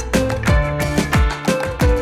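Background music with a steady beat: upbeat Latin-style track with deep drum strokes about twice a second under sustained melodic tones.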